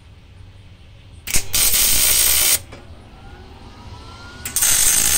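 MIG welder laying two short tack welds on a steel bracket, each a loud burst of steady hissing about a second long. The first comes about a second in and the second near the end.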